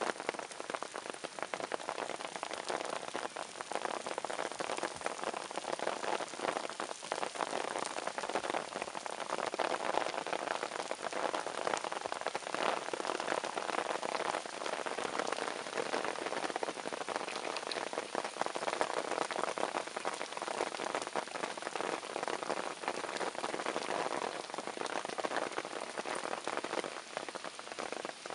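Steady rain falling on a surface: a dense, even crackle of drops that holds unchanged throughout.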